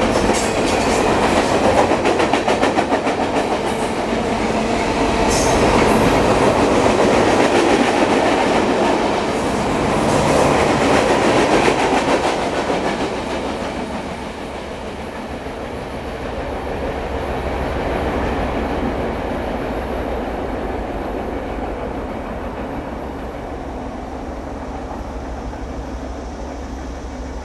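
Freight cars of a fast-moving CSX manifest train rolling past, wheels clattering over the rail joints. The clatter drops off about halfway through, leaving a quieter, lower rumble.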